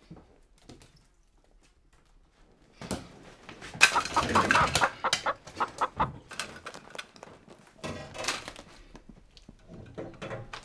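A chicken squawking and clucking in agitated bursts, mixed with sharp knocks and clatter. It starts about three seconds in, is loudest around four to five seconds in, and has a second burst near eight seconds.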